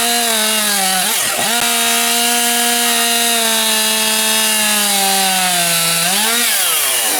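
Two-stroke chainsaw at full throttle slicing thin discs off a log held sideways. Its pitch dips briefly once about a second in, as the chain loads up. Near the end the throttle is released and the engine winds down.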